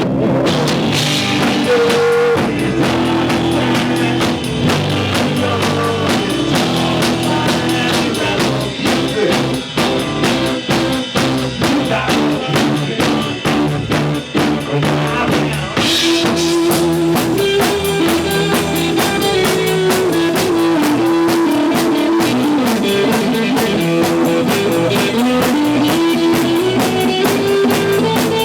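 Rock band playing an instrumental break on drum kit, bass and electric guitar, with no singing. In the second half a lead melody line bends up and down over the band.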